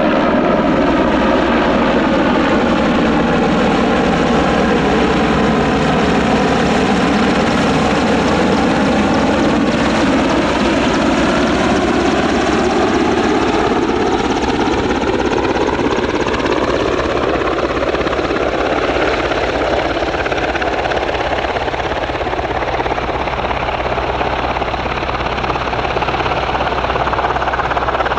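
Royal Navy AgustaWestland Merlin helicopter landing, its rotors and turbine engines loud and steady. A slow phasing sweep runs through the noise, falling in pitch during the first several seconds and rising again in the middle of the stretch.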